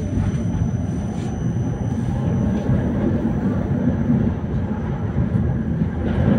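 Tram running along street track: a steady low rumble of wheels on the rails and the running gear.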